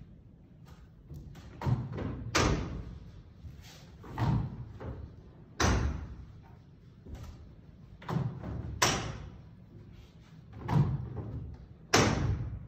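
Telescopic bleacher seating being set up by hand, giving about eight loud, irregularly spaced metal clunks and thumps, the last near the end the loudest.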